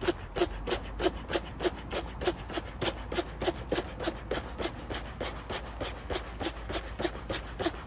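Ultralight TPU inflatable sleeping pad being blown up by treading on its foot-pump end. The presses come in an even, quick rhythm, about three a second, each with a short rush of air.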